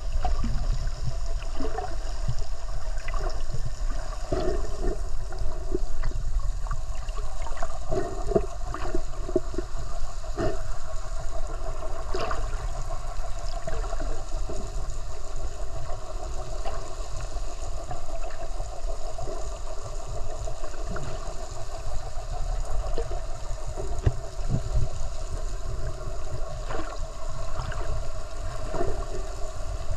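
Underwater sound picked up by a submerged camera: a steady low rush of water with a faint steady hum, broken by scattered irregular bubbling and gurgling.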